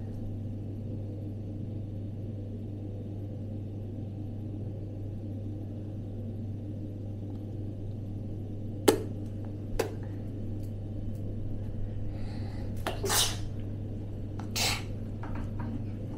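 Steady low hum, with two sharp clicks about nine seconds in and a few short breathy, hissy puffs near the end.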